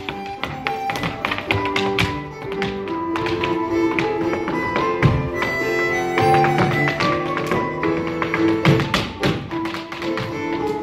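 An Irish dance tune with a held, stepping melody, over the rapid clicks and taps of Irish dance shoes beating out steps on a portable wooden dance floor.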